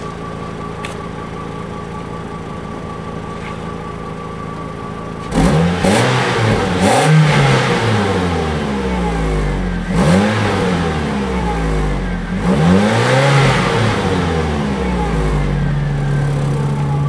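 A cold 2007 Ford Focus SE hatchback's four-cylinder engine, heard at the tailpipe. It idles steadily, then from about five seconds in it is revved up and down several times before settling back to idle near the end.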